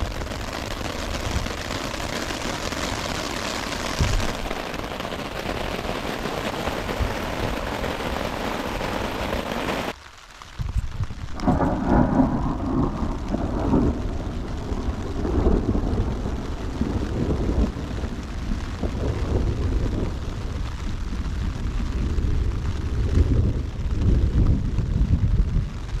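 Heavy rain falling steadily for about ten seconds, then a sudden cut to a low rumbling that rises and falls unevenly.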